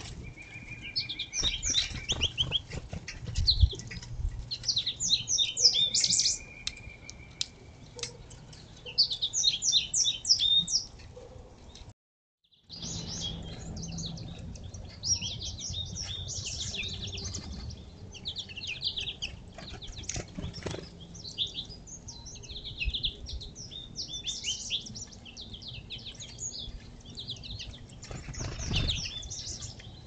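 Several small songbirds chirping and trilling busily at a seed feeder, with wing flutters and a few low thuds about three to four seconds in. The sound drops out completely for a moment about twelve seconds in.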